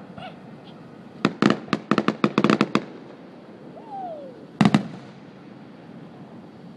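Aerial fireworks shells bursting overhead: a quick volley of about ten sharp cracks between one and three seconds in, a short falling whistle, then two more loud bangs just past the middle.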